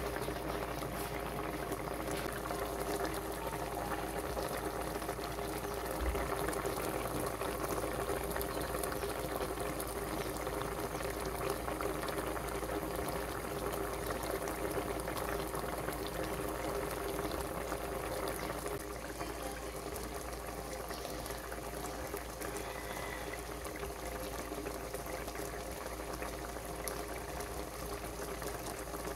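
Catfish curry in coconut milk boiling in a pot: a steady dense bubbling and popping, a little softer after about 19 seconds.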